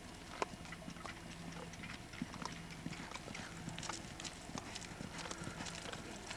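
Hoofbeats of a horse loping and turning a barrel pattern on a soft dirt arena: a quick, uneven run of dull thuds.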